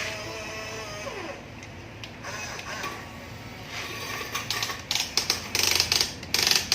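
Small electric motor and plastic gears of a Huina radio-controlled construction toy whining, the whine dropping in pitch and stopping about a second in. Then irregular clicking and rattling that grows louder and busier over the last few seconds.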